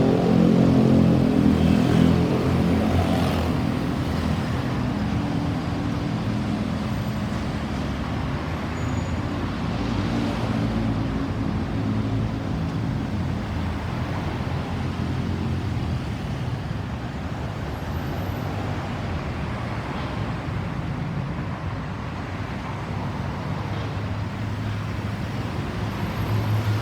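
Road traffic noise: a motor vehicle's engine runs close by and loudest for the first few seconds, then settles into a steady traffic rumble. A deeper engine hum builds again near the end.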